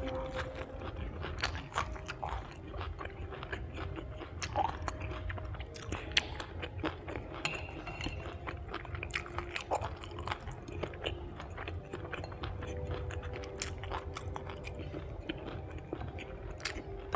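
Close-miked chewing and crunching of crisp pan-fried kimbap, with many small wet mouth clicks. Faint karaoke singing carries on in the background.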